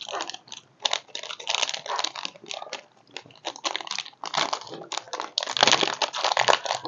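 Plastic snack wrapper crinkling in the hands as it is pulled open, in quick irregular crackles with brief pauses.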